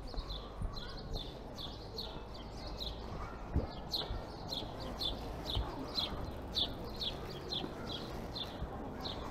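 Quiet pedestrian-street ambience with a steady run of short high ticks, about two to three a second.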